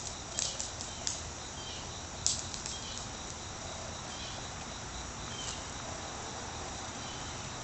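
A few scattered faint clicks of small rocks being dropped by hand and landing, the sharpest about two seconds in, over a steady quiet high background hiss.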